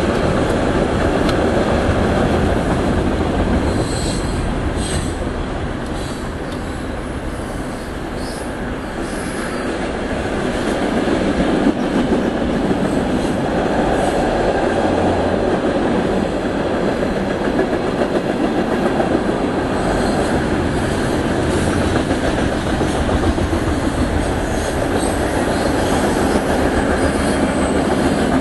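HO-scale model trains rolling past on the layout track: a continuous rumble and clatter of small wheels over the rails, with a little squeal. It eases slightly a few seconds in and gets louder again as the locomotives come by.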